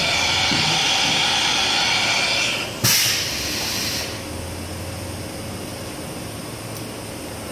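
Milltronics RH-19 CNC machining center making an automatic tool change: a loud hiss of air for about two and a half seconds, a sharp clunk as the new tool is clamped and the carousel swings back, then a shorter hiss before the machine settles to a quieter steady run.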